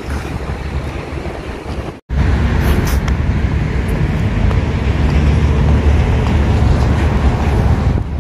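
Wind buffeting the phone's microphone: a heavy, noisy low rumble, broken by a brief gap about two seconds in.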